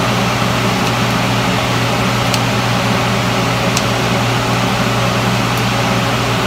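Steady whir of a fan with a low hum, unchanging throughout. A few faint clicks of kitchen scissors snip damp taro leaves in a stainless steel pan.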